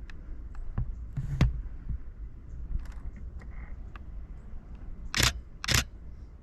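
Shutter of a Canon Rebel T7i DSLR firing: a few faint clicks early on, then two louder shutter releases about half a second apart near the end, over a steady low rumble.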